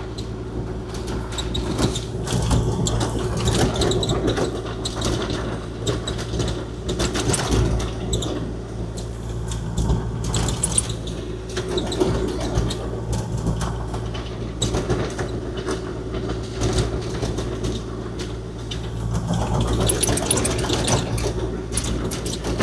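Kubota KX040-4 mini excavator's diesel engine running steadily, with frequent clanks and rattles of metal throughout.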